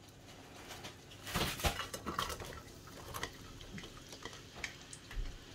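Sliced onion tipped from a glass bowl into an oiled nonstick frying pan: a short run of knocks and clatter of the bowl and onion against the pan starting about a second in, then a few lighter clicks.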